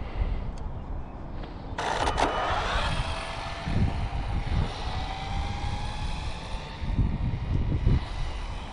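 Arrma Limitless V2 RC speed-run car's brushless electric motor passing with a sudden loud rush about two seconds in, then its high-pitched whine slowly rising in pitch. Wind gusts buffet the microphone throughout.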